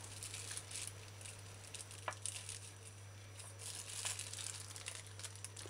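Faint crinkling of plastic wrap and soft knife contact as a block of cheddar cheese is cut into strips on its wrapper, with one small click about two seconds in, over a steady low hum.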